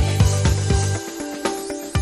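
Background music with a steady drum beat; the low bass drops out about a second in.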